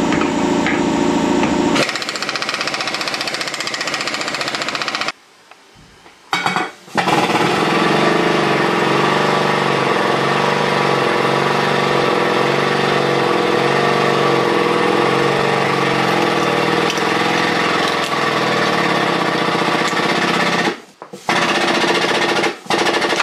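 Loud, steady chatter of an air-powered tool, cutting out briefly about five seconds in and again near the end.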